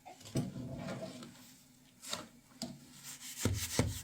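A few short scraping strokes of a hard tool rubbing over a rough surface, the loudest near the end.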